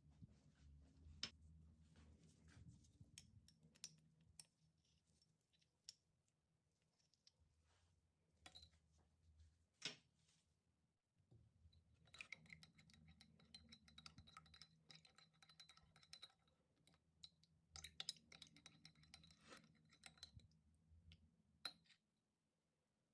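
Faint clicks and scrapes of kitchen utensils being handled. Twice, for a few seconds each, a faint ringing tone sounds under the clicks.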